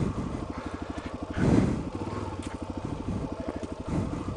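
Suzuki DR-Z400's single-cylinder four-stroke engine idling with a steady, even putter. A brief louder noise comes about a second and a half in.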